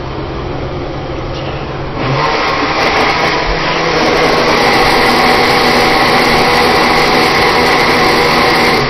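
Countertop blender running, puréeing canned diced tomatoes into a sauce. After a steady low hum, the blender starts about two seconds in, gets louder a couple of seconds later and cuts off suddenly near the end.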